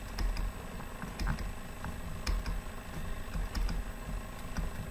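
Irregular light taps and clicks from handwriting being entered on a computer's digital whiteboard, with soft low thuds from the desk.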